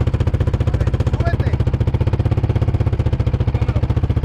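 Off-road vehicle engine running at a steady speed with a fast, even putter that does not rise or fall.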